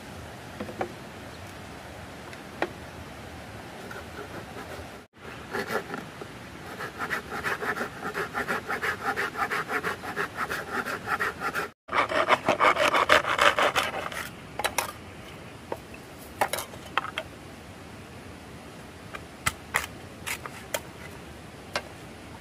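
Fast rhythmic scraping strokes, about five a second, growing louder and broken off twice abruptly, then fading into scattered light clicks and taps.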